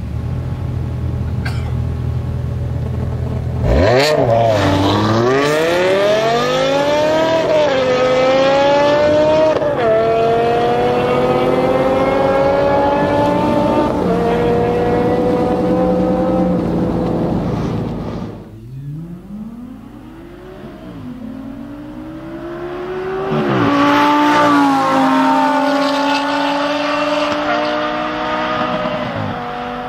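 BMW M5 V10 through an Eisenmann race exhaust, rumbling at idle, then launching hard about four seconds in. The engine note climbs in pitch through each gear and drops at each of about four upshifts, fading as the car pulls away. After a sudden break, a second hard acceleration runs through several quick upshifts and grows louder as it comes closer.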